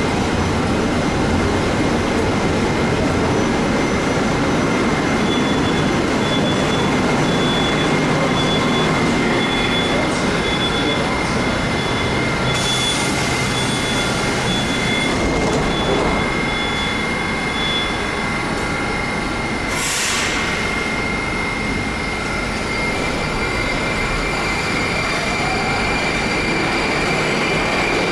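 Moscow metro 81-760/761 Oka electric train standing at the platform with its equipment giving a steady high whine, a faint beep repeating for a while. A short air hiss comes about two-thirds of the way in, then the train pulls out, its whine rising as it gathers speed.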